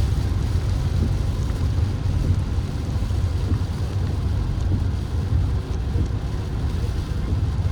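Peugeot 3008 driving, a steady low rumble of engine and road noise.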